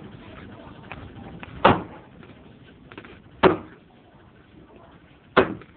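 Three heavy chopping strikes into firewood as it is split by hand, spaced about two seconds apart, each a sharp thwack with a brief ring-off.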